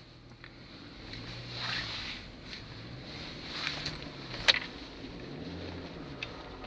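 Car engine running with its pitch rising and falling as it is revved. There are short rasping noises about a second and a half and three and a half seconds in, and a sharp click about four and a half seconds in. The revving is a check for an extraneous noise that the owner hears only with the engine warm and between 2000 and 3000 rpm.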